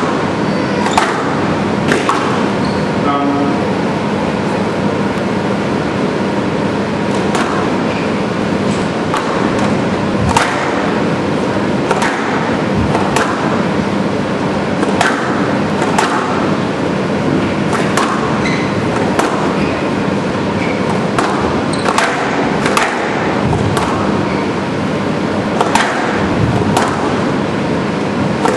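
Squash rally: the ball cracking off rackets and the court walls again and again, about once a second, over a steady hiss and hum of the hall.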